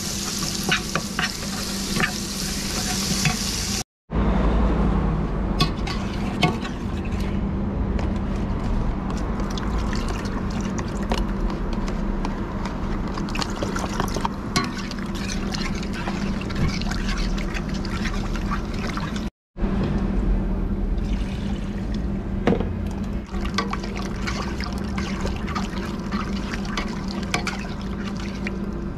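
Beef cubes sizzling in oil in a stainless steel stockpot while a spoon stirs them, with many small clicks of the spoon on the pot. After an abrupt cut about four seconds in, the sizzle is quieter and the spoon stirs through liquid in the pot, and after a second cut it stirs a thick coconut-milk curry. A steady low hum runs underneath.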